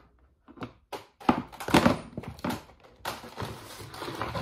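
A plastic mixing bowl and other kitchen things being handled and set down on a counter, giving a run of light knocks and thunks. From about three seconds in there is a steady hiss, with a few softer knocks over it.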